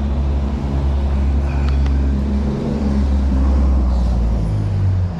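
A motor vehicle's engine running close by in street traffic: a low, loud drone that changes pitch about halfway through and again near the end as it pulls away or shifts gear.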